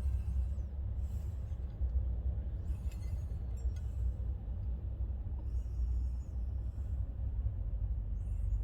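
A steady low rumble with a few faint clicks and short high squeaks over it.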